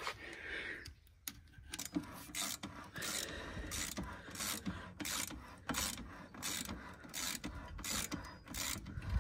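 Ratcheting clicks, about two or three a second, as the slack adjuster on a semi truck's steer-axle drum brake is wound with a wrench. The clicks are the brake being adjusted up, closing the gap between the shoes and the drum.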